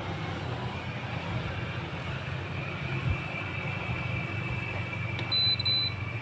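Steady low electrical hum under a hiss, with one short, high-pitched electronic beep about five seconds in.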